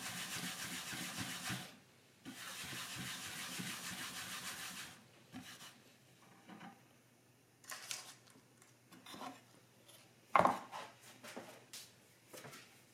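Steady rasping scrape in two stretches, about two and a half seconds each, then a few light knocks and clicks, with one sharper knock about ten seconds in.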